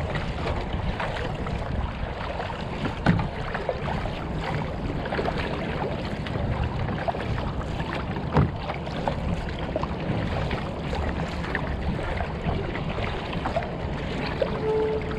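Water splashing and sloshing around a kayak, with wind buffeting the microphone. Two sharp knocks stand out, about three seconds in and about eight seconds in.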